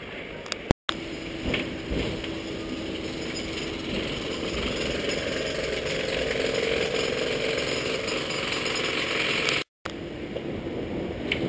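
Hong Kong double-decker tram running along its street rails, heard from the open upper deck: a steady noisy rumble of the moving car with a few knocks, and a steady hum through the first half. The sound drops out twice, briefly.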